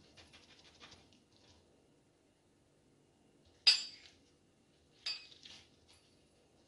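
Footed glass dessert cups being set down and clinking with a short ring: one sharp clink about halfway through, then a softer one a second and a half later with a couple of small taps, after faint rustling at the start.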